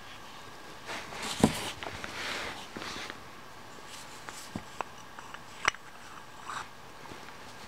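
Handling noise of a steel knife blade and its plain wooden sheath in gloved hands: a rustling, scraping stretch with one sharp knock in it, then a few light clicks and a sharp click as the blade meets the sheath.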